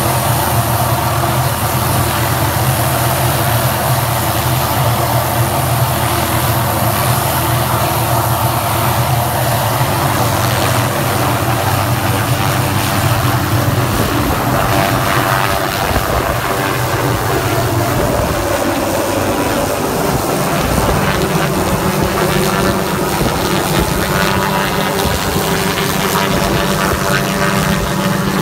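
Tree-trimming helicopter running steadily. About two-thirds of the way through, the deep low hum drops away and a higher steady tone takes over.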